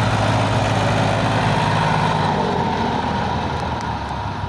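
Farm tractor's diesel engine running steadily while hauling a heavily loaded trolley, its low drone easing a little after about two seconds.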